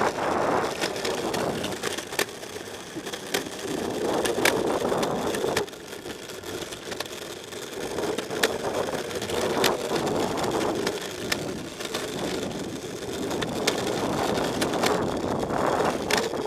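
Electric skateboard's urethane wheels rolling over rough asphalt: a steady road rumble peppered with sharp clicks and crackles from grit and cracks in the surface. It eases off for a few seconds about a third of the way in, then picks up again.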